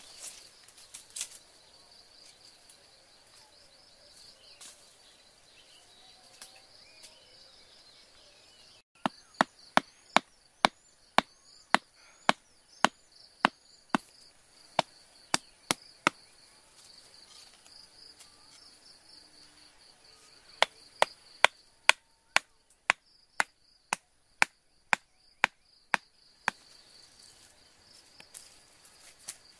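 A hand-held stone pounding a wooden stake into the ground: two runs of sharp knocks, about two a second, the first starting about nine seconds in and the second a few seconds after it stops.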